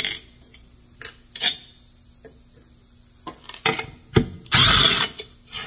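Cordless driver with a socket spinning the adjusting nuts off a Top Fuel funny car clutch pressure plate, run in short trigger bursts with a longer run about three-quarters of the way through. There is a sharp metal click just before that run. The nuts come off with hardly any resistance.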